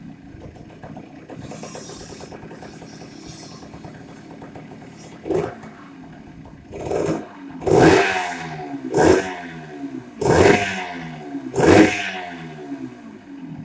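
Yamaha DT100's single-cylinder two-stroke engine idling, then blipped about six times in the second half, each rev dropping quickly back to idle.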